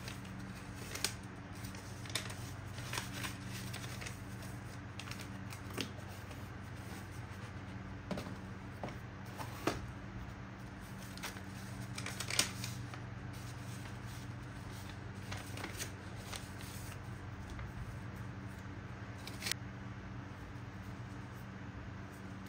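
Scattered light taps, clicks and paper rustles from hands handling paper items on a desk, a few sharper ones standing out, over a steady low hum.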